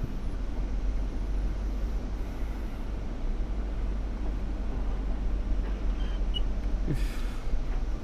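Off-road 4x4's engine and drivetrain rumbling steadily at low speed, heard from inside the vehicle, with one brief short sound about seven seconds in.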